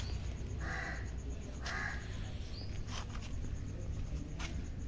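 A bird calling twice, two short harsh calls about a second apart, with a few sharp clicks later and a steady low rumble beneath.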